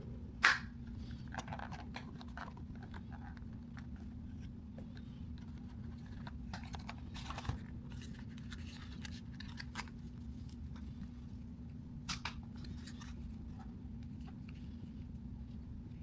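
Unboxing handling: packaging and small camera accessories being handled, with scattered clicks and rustling and a sharp click about half a second in, over a steady low hum.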